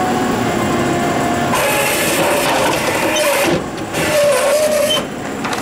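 Tomra Uno reverse vending machine running as it takes in a plastic bottle: a steady mechanical rattle and grind that grows louder and hissier for a couple of seconds about midway, then dips twice.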